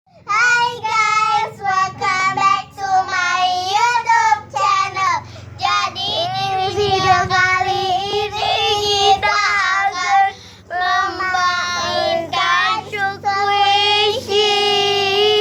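A young child singing a tune, with long held and sliding notes.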